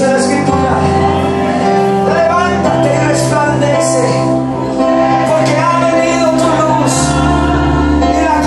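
Worship song: singing over held instrumental chords, with the bass note changing every second or so.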